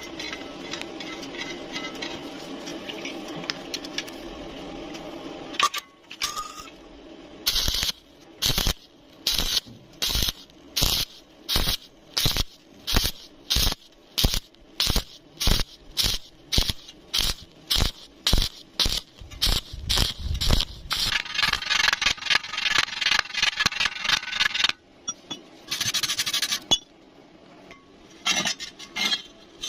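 Electric welding arc struck in short crackling bursts, about two a second, the way stitch or tack welds are laid, then held for a continuous run of a few seconds. It opens with several seconds of steady noise before the first arc.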